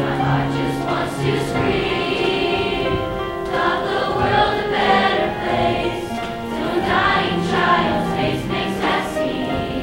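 Junior show choir singing together, with sustained notes.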